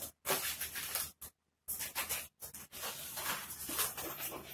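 Long latex twisting balloons rubbing against the hands and each other as they are handled and shaped, on and off with short pauses.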